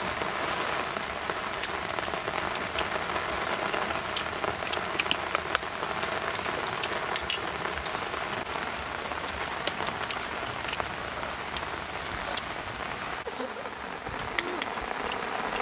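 Steady rain falling, a constant hiss with many small sharp drop ticks.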